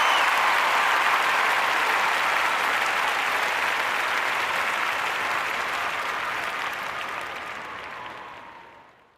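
A large audience applauding steadily, a dense wash of many hands clapping, fading out over the last two seconds.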